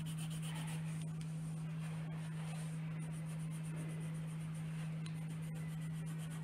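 Steady low electrical hum, with faint scratches of a coloured pencil on paper now and then.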